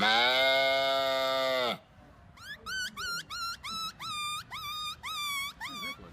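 A man's voice imitating animals: a long, loud cow moo that drops in pitch and stops about two seconds in, followed by a quick run of about nine short, high calls, each sliding up and then holding steady.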